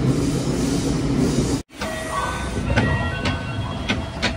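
Subway train heard from inside the car, running through a tunnel with a steady rumble and rush. After an abrupt cut about a second and a half in, the train is at a station: a quieter rumble with a few short steady tones at different pitches and some sharp clicks.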